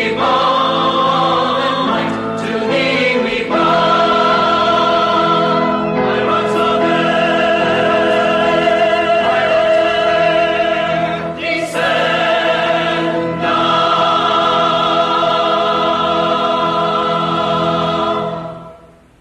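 Choir singing slow, held chords that change every few seconds, then fading out near the end.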